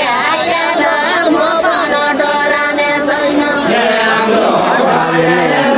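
A group of voices singing a Nepali deuda folk song together, several voices overlapping.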